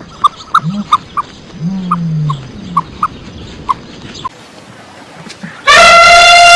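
Animal calls: repeated short high peeps with a few low grunting calls, then near the end a loud, drawn-out call held at one pitch that falls away as it ends.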